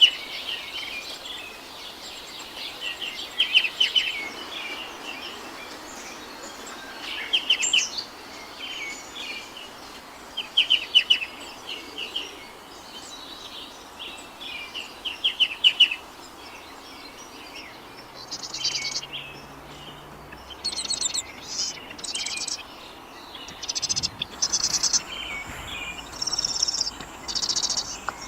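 Birdsong: a bird repeats a short trilled phrase every few seconds. From about two-thirds of the way through, higher, rapid chattering notes take over, over a steady background hiss.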